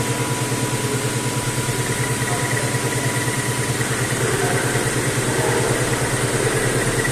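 CNC milling machine running steadily with an end mill: a constant mechanical hum with a fast, even low throb and a steady high whine.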